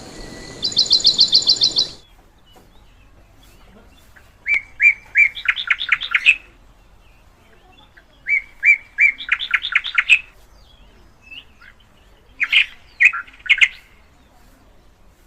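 Cockatiel whistling a short phrase of clear notes that speed into a fast run, given twice, then a few shorter calls near the end. It is opened by a rapid high trill against a hiss that cuts off after about two seconds.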